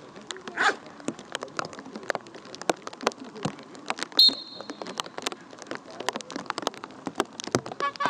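Rain pattering as a steady spray of small ticks, with one short, high whistle blast about four seconds in: the handler's recall whistle calling the dog off the decoy's bite.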